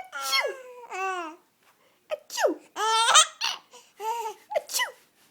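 Baby giggling in a string of short, high-pitched bursts with brief pauses between them.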